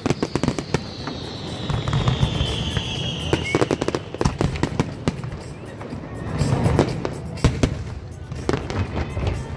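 Aerial fireworks display: a dense run of bangs and crackling from shells bursting, close together throughout. A high whistle slides slowly down in pitch over the first three seconds or so.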